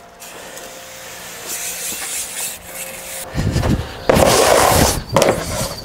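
Snowboard, its base slicked with furniture polish, sliding fast down plastic dry-slope matting: a loud rasping scrape that starts about three seconds in, with two brief breaks.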